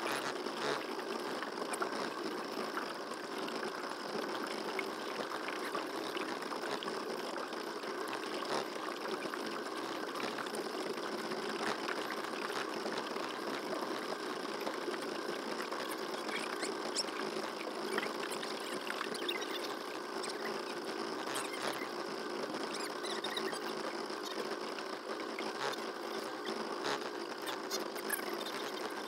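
Small boat motor running steadily with a buzzing hum that sounds like a fly.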